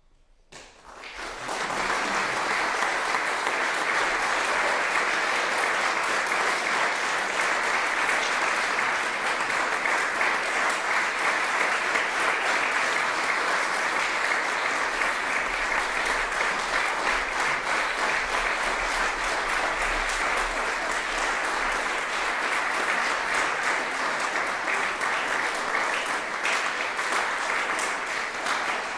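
Audience applause that swells up about a second in from near silence and then continues steadily as a dense, even patter of clapping hands.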